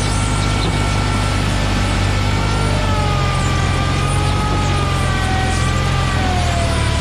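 Garden tractor engine running hard under steady load as it drags a weighted stoneboat sled, with a high whine over it that slowly drops in pitch in the second half.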